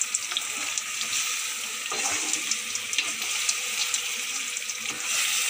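Sliced green mango and sugar sizzling in a hot pan on a gas flame while being stirred with a spatula, with light scraping clicks. The sugar is melting down without any water added.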